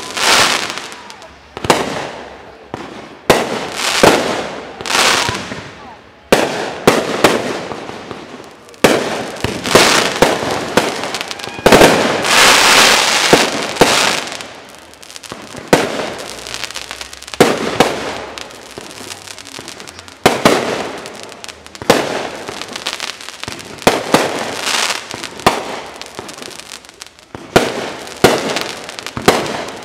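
Aerial fireworks shells bursting overhead: a long series of sharp booms, each trailing off over a second or so. Around the middle comes a dense run of crackling from crackling-star shells.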